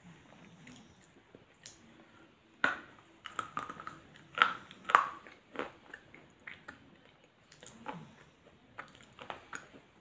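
A person biting and chewing a crunchy snack close to the microphone: irregular crunches, the loudest clustered about three to five seconds in.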